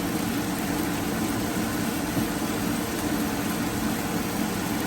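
A steady hum with an even hiss, unchanging throughout.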